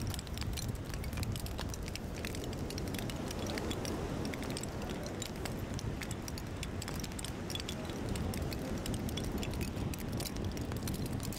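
Shells hanging on strings from a driftwood mobile knock and clink together, giving many small dry clicks over a steady low wind rumble.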